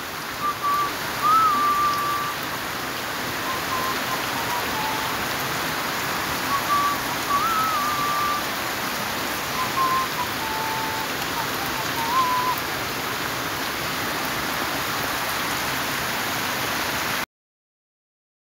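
Steady rain falling, with a few short, thin whistled notes over it in three small groups. The sound cuts off abruptly to silence near the end.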